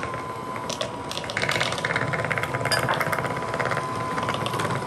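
Electric hand mixer running steadily, its beaters whipping butter frosting in a ceramic bowl as powdered sugar is added. There is a constant motor whine and a fast rattle of the beaters, busiest in the middle.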